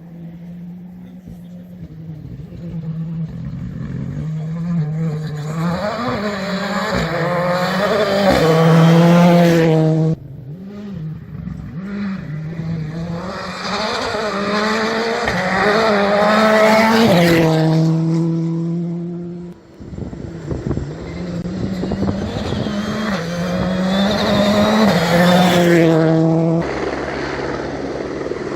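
Rally cars driven flat out on a special stage, engines rising in pitch through the gears with quick drops at each shift. It happens three times in a row, each run building to a loud peak close by, and the first two cut off suddenly.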